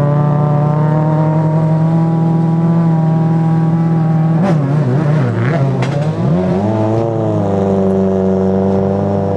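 Ford Focus RS WRC rally car's turbocharged four-cylinder engine running at a raised, steady idle. Two sharp cracks come about halfway through. The revs then dip and rise and hold steady at a higher pitch.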